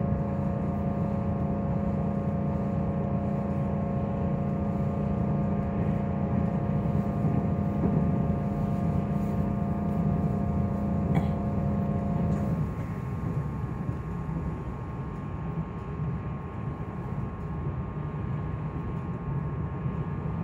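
Meitetsu 2000-series μSKY electric train running at speed, heard from inside the car: a steady rumble of wheels on rail under a steady electric motor whine. The lower part of the whine stops about twelve seconds in and the running noise drops a little, with a single click just before.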